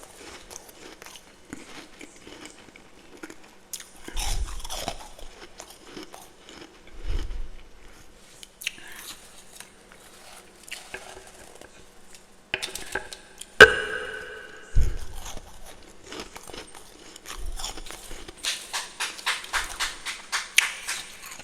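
A person biting and chewing freezer frost (humidifier frost), crunching in bursts that turn fast and dense near the end. About two-thirds through comes one sharp, loud knock with a brief ring.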